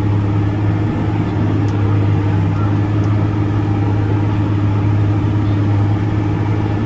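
Tractor engine running steadily under load while pulling a tillage implement, heard from inside the cab as a constant low drone.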